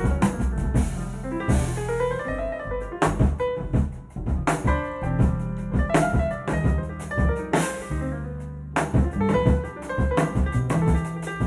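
Live jazz piano trio: a Steinway grand piano improvising a run of notes over an upright double bass and a drum kit. The drums swell on the cymbals twice, about two seconds in and again near eight seconds.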